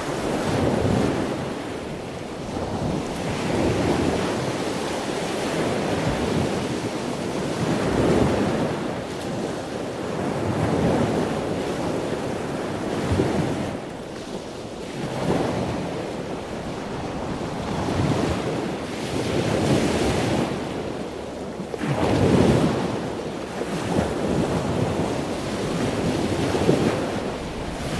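Sea waves breaking and washing onto a rocky, sandy shore, surging every few seconds, with wind buffeting the microphone.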